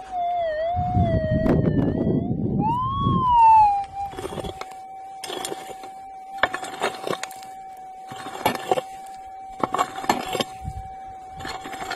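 A metal detector's audio tone sounds throughout. It wavers in pitch and slides up and back down about three seconds in, then holds steady. Over the first few seconds there is a rough rustling noise, and from about four seconds in a pick strikes hard, stony ground roughly once a second.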